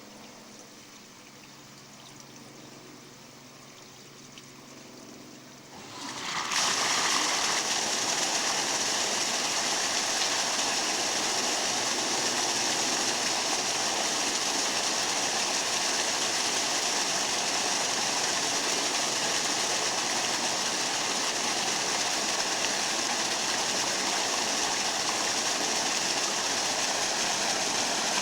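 Pool hydromassage waterfall: a faint trickle of water for about six seconds, then the flow surges up to a loud, steady rush of water falling into the pool.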